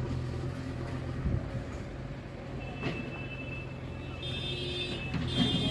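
An engine running steadily with a low even hum. A thin high steady tone joins about halfway through, and more high tones come in near the end.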